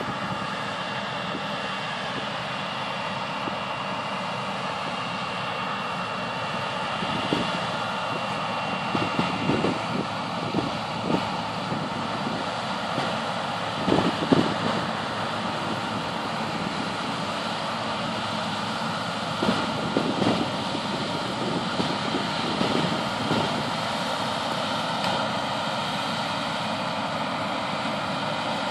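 Claas combine harvester running while harvesting maize: a steady drone of the engine and threshing machinery. Irregular short louder knocks come through the middle stretch.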